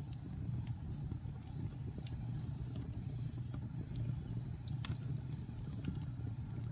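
Wood fire burning in a fireplace: a steady low rumble of the flames with scattered sharp crackles and pops, one louder pop about five seconds in.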